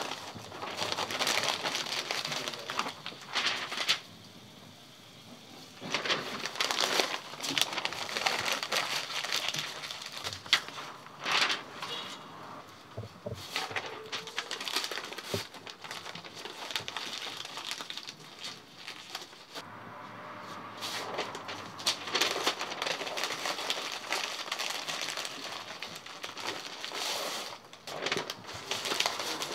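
Sheets of wrapping paper rustling and crinkling as wraps are rolled and folded into them by hand, in irregular bursts with a short lull about four seconds in.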